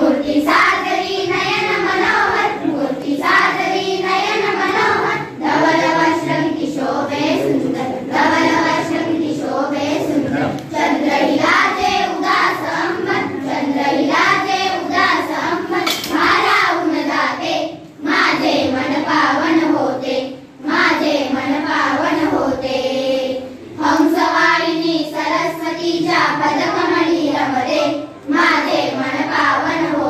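A group of schoolgirls singing a Marathi welcome song together, line by line, with short breaks between phrases.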